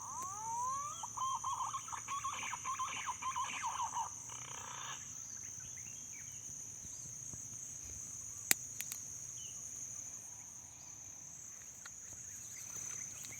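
Green pigeon (punai) call played from a lure speaker: a few rising whistles, then a fast warbling run of notes lasting about four seconds. A steady high insect drone runs underneath, and a single sharp click comes about eight and a half seconds in.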